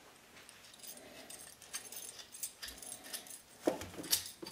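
Small metal parts clinking and ticking as a chrome highway-peg clamp is taken apart by hand: the nut, bolt and lock washers knocking together, with two louder clacks near the end.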